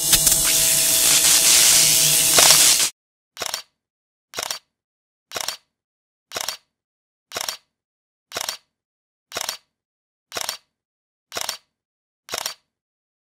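A loud electric buzz for about three seconds, like the sound effect of a neon sign switching on. It is followed by ten short camera-shutter clicks, about one a second, each a quick double click.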